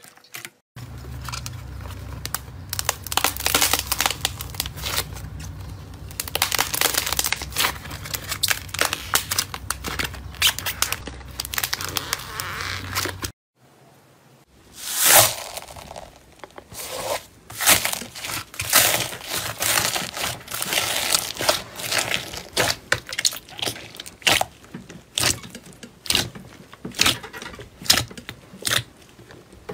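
Slime being kneaded and squeezed by hand: dense, continuous crackling and squishing for about twelve seconds, then after a short pause, a foam-bead slime being pressed, giving separate crunchy crackles and pops.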